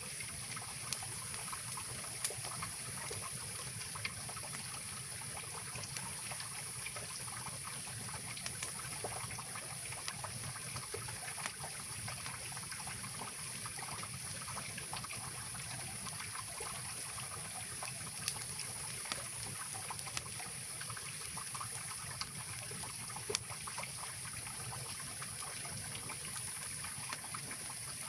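Mountain river flowing steadily under the fire: a continuous rushing hiss, broken by a few faint sharp clicks.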